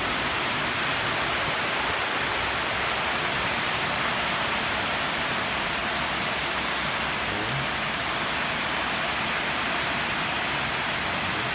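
Steady, even hiss with no other sound standing out.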